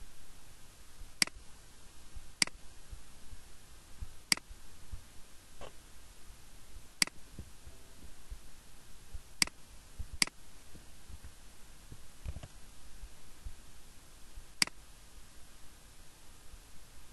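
Computer mouse clicking: about seven sharp single clicks, irregularly spaced a second or more apart, over a faint steady background noise.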